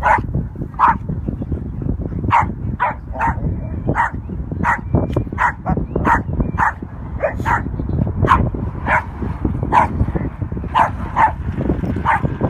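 A dog play-barking in short, sharp barks, about twenty of them at an uneven pace, while dogs tussle together, with a low rumbling noise underneath.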